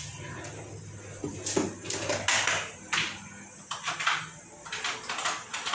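Meat and calabresa sausage searing in a little oil in an aluminium pressure-cooker pot, sizzling in short irregular surges over a low steady hum.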